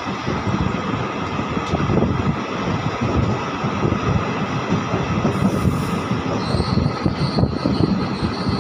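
Steady rumble and rattle of a moving passenger train's wheels on the rails, heard from inside the coach at an open barred window. A thin, steady high squeal sets in about two-thirds of the way through.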